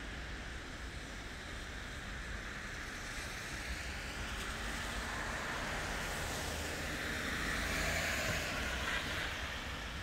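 Steady low traffic rumble, with a passing vehicle's tyre hiss swelling to a peak about eight seconds in and then easing off.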